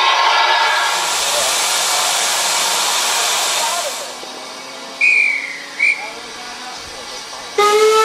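Steam locomotive letting off steam in a loud steady hiss that dies away about halfway through. Then come two short high whistle blasts, and near the end the locomotive's steam whistle sounds.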